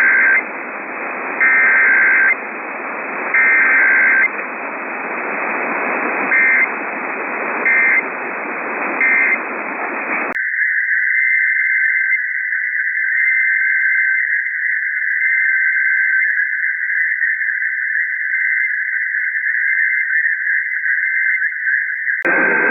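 Emergency Alert System data bursts heard over a static-filled radio broadcast: three one-second screeching header bursts, then three short end-of-message bursts. About ten seconds in, the static cuts out and a steady high warbling data tone runs for about twelve seconds.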